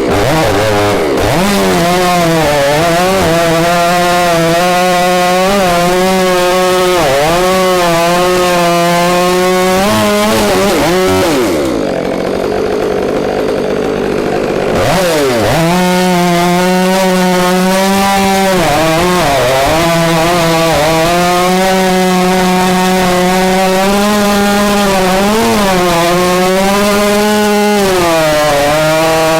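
Stihl 500i two-stroke chainsaw running at full revs while cutting through an oak log, its pitch dipping and recovering over and over as the chain takes the load. About twelve seconds in it drops off throttle for a few seconds, then revs back up and keeps cutting.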